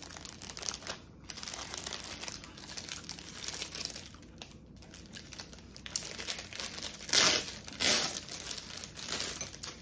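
Thin plastic bakery bag crinkling and rustling as a bun is pulled out of it and handled, with two louder crackling bursts near the end.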